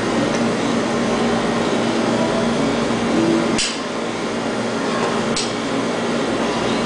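Steady mechanical hum and hiss of room machinery, with two short sharp hisses, one about halfway through and one near the end.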